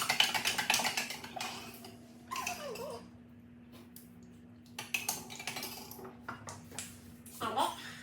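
Kitchen utensils and dishes clinking and clattering during cooking, in quick runs of sharp clicks: one run at the start and another about five seconds in.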